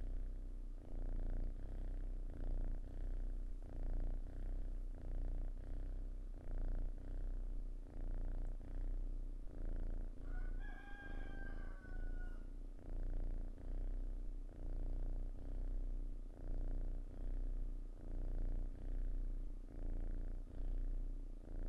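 A sleeping tabby cat purring steadily, the low rumble swelling and easing with each breath, a little over once a second. About halfway through, a rooster crows once, quieter than the purring.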